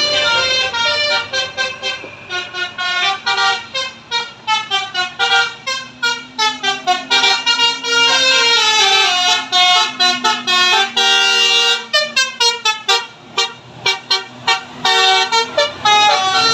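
Tour bus's basuri multi-tone air horn with roof-mounted trumpets, playing a fast tune of short stepping notes that now and then slide in pitch.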